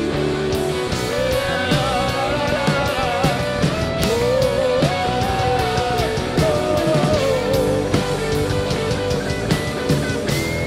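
Live rock band playing: drum kit and electric guitar with steady drum hits, and a lead melody wavering up and down over them.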